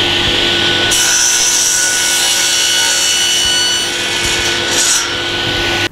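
Table saw running at speed and cutting an angle through a piece of timber fed on the miter gauge. The blade's steady running sound is joined about a second in by the noisier sound of the blade cutting the wood, which lasts until near the end, and then the sound cuts off suddenly.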